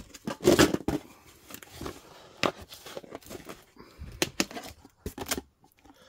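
Cardboard boxes being handled and opened: flaps rustling and scraping, with irregular sharp knocks and crinkling of plastic wrap, the loudest rustle about half a second in.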